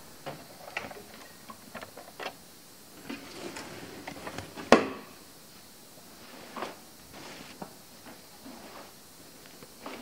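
Hands loading a mesh laundry bag full of curtains into a washing machine: scattered soft rustles and light knocks against the plastic, with one sharp click about halfway through.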